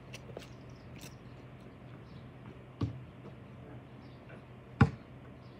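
Spalding basketball bouncing: two sharp thuds about two seconds apart, the second louder.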